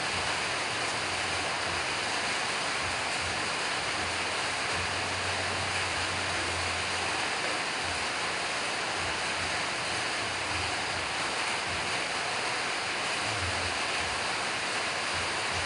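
Steady rushing background noise, even throughout, with a faint low hum that comes and goes.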